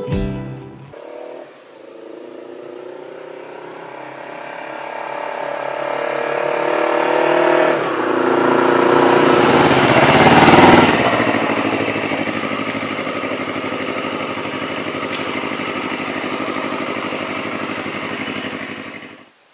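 Yamaha YZF-R25 parallel-twin motorcycle engine accelerating under way. The revs rise over several seconds and drop briefly at a gear change about eight seconds in, then climb to a peak near the middle and settle to a steady cruise before cutting off suddenly near the end.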